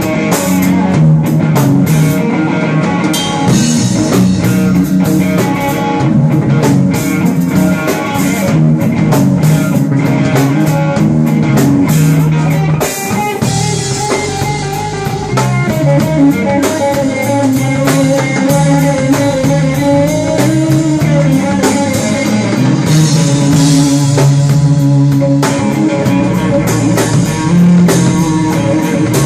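Live blues-rock band: electric guitar playing a lead line with bent notes over electric bass and a drum kit.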